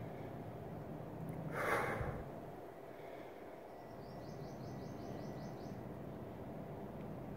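A short, forceful breath out, about a second and a half in, from someone straining to hold a plank, over a steady background hum.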